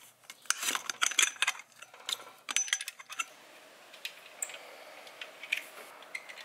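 Rapid metallic clicking and clinking of hand tools and nuts being worked off the studs of a turbo heat shield, thinning to a few single clicks after about three seconds.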